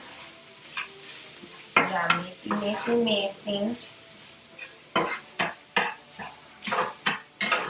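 A spatula stirring sloppy joe meat in a frying pan over a faint sizzle, with a run of sharp scrapes and knocks of the spatula against the pan in the second half.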